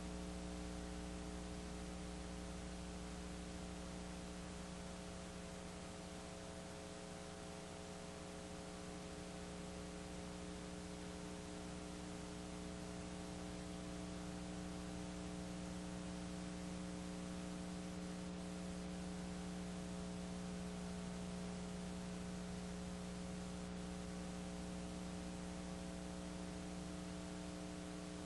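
Steady electrical mains hum, several pitched tones holding unchanged, over a constant layer of hiss; no game sounds stand out above it.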